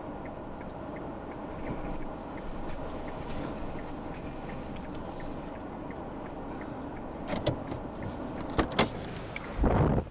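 Steady road and engine noise inside a moving car's cabin, with a faint regular ticking. Several sharp clicks and knocks come near the end, then a short loud rushing noise.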